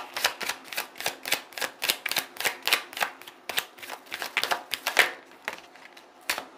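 A deck of tarot cards being shuffled hand over hand, the cards clicking against each other about four times a second. The clicking stops about five seconds in, with a single tap near the end.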